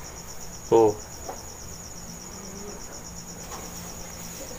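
A cricket trilling steadily: a continuous high-pitched chirring made of rapid, even pulses.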